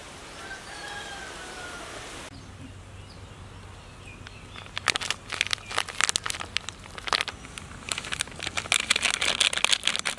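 A bird calls faintly in the first couple of seconds. From about five seconds in, a plastic spice packet crinkles and crackles in quick bursts as red chilli powder is shaken out of it into a pot of water.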